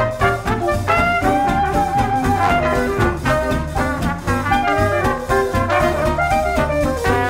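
Background music: instrumental jazz with brass melody lines over a steady beat.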